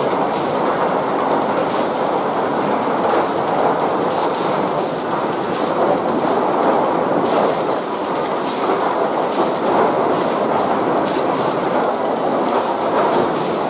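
Sawmill lumber stacking line running: a steady loud mechanical din of chain conveyors and rollers, with irregular clicks and clatter of boards and steel throughout.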